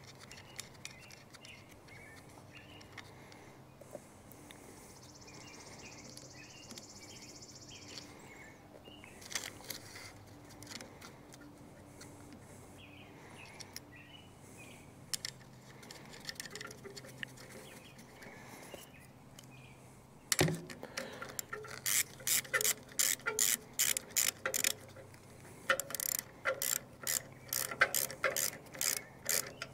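Ratchet wrench clicking in quick runs as it turns a nut on a battery disconnect switch terminal. The runs start after a sharp clack about two-thirds of the way in.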